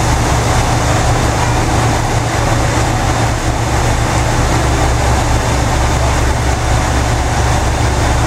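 Diesel engines of a JR Shikoku 2000-series tilting railcar idling at the platform: a steady low throb with no change.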